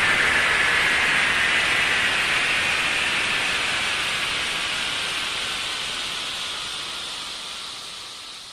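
Airplane taking off: a loud rushing engine noise with a high whine that slowly drops in pitch, fading steadily as the plane climbs away and nearly gone by the end.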